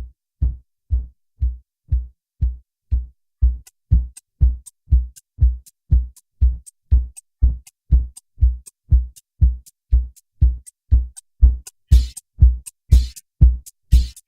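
Background electronic music with a steady drum-machine kick a little over two beats a second. High hi-hat ticks join about three and a half seconds in, and a brighter cymbal-like hiss joins near the end.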